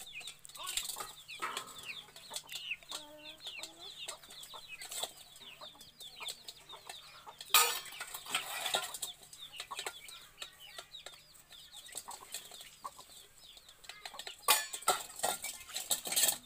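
Stainless steel bowls and plates clinking and scraping as they are scrubbed and stacked by hand, with the loudest clatters about halfway through and several near the end. Birds chirp and cluck over it the whole time.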